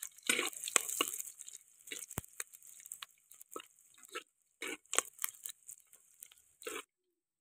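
Metal spatula scraping and stirring chopped onion and green chilli as they sizzle in oil in a clay pot, in irregular strokes. The sizzle is strongest in the first couple of seconds, and the sound cuts off just before the end.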